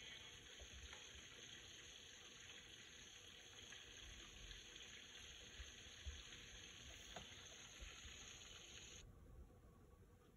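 Faint sizzle of breaded chicken deep-frying in hot oil in a wok, with a few light clicks from a metal skimmer. The hiss drops away abruptly about nine seconds in.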